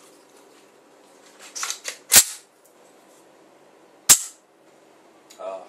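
The action of a Safir S2 T14 .410 AR-style semi-auto shotgun being worked by hand: a few light clicks, then two sharp metallic clacks about two seconds apart, the first ringing briefly.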